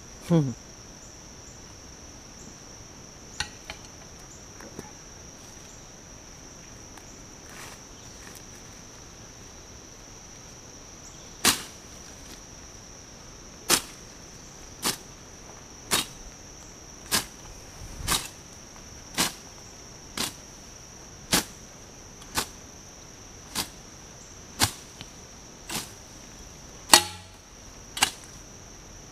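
A long-handled hoe striking weedy ground in sharp chops about once a second, some fifteen strokes starting about eleven seconds in, over a steady high-pitched drone of insects.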